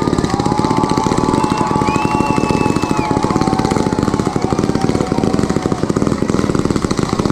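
Fireworks going off in a rapid, continuous barrage of cracks, many a second, like a finale volley, cutting off suddenly at the end.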